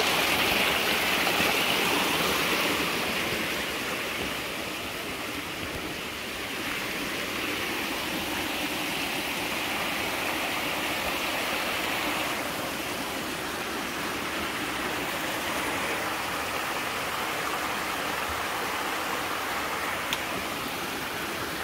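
Small rocky jungle stream cascading over boulders: a steady rush of running water, swelling and easing a little in level.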